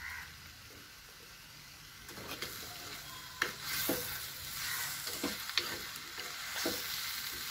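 Anchovies and masala frying in a heavy black pot, sizzling, while a steel spoon stirs them, scraping and clicking against the pot. The sizzle and stirring start about two seconds in.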